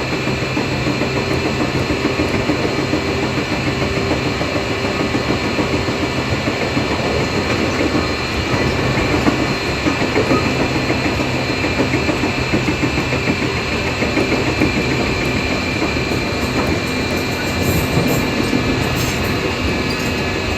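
415 series 1500-subseries electric train running, heard from inside the car: steady rumble of wheels on rail with clicks over the joints. Over it sits a steady high-pitched, jet-like whine, an abnormal noise whose cause the uploader does not know.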